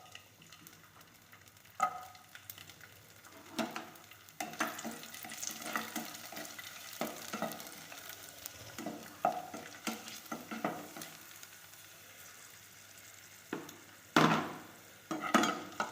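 Raisins frying in hot ghee in a pan, with a light sizzle while a spoon stirs and knocks against the pan at irregular moments. A louder clatter comes near the end.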